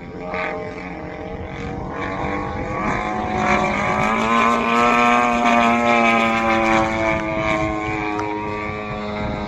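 Engine and propeller of a radio-controlled Sbach 342 aerobatic model plane droning in flight, growing louder and higher in pitch about halfway through, then dropping in pitch and fading as it passes by.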